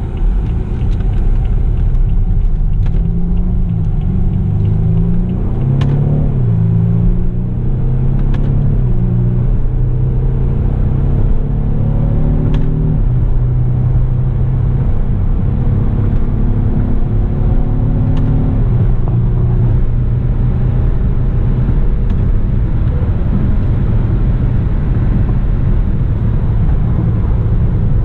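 BMW 328i (F30) turbocharged four-cylinder engine accelerating through the gears. Its pitch rises and then drops at each of about four upshifts, then it runs at a steady drone for the last third.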